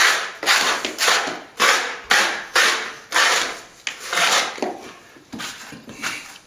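Partly set stopping plaster mixed with fine white sand being scraped back with a blade in quick repeated strokes, about two a second, each a short rasping scrape. The patch has started to firm up, and it scrapes back well.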